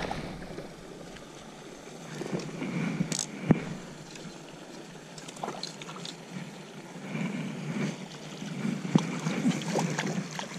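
A hooked trout splashing at the pond surface as it is played in on a fly line, with a couple of sharp handling clicks.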